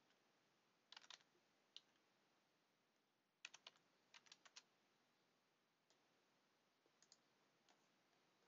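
Faint clicking of a computer keyboard and mouse: a short run of clicks about a second in, a longer quick run around the middle, and a few single clicks between.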